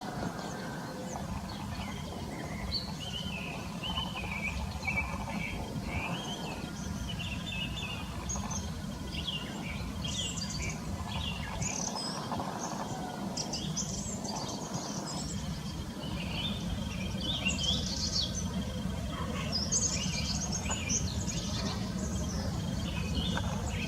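Several small forest birds chirping and singing in overlapping short calls and trills, busier in the second half, over a steady low background rumble.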